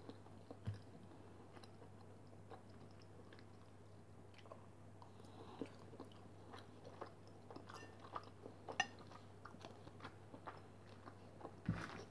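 A person quietly chewing boiled pelmeni (Russian meat dumplings), with scattered small wet mouth clicks and a louder click near the end.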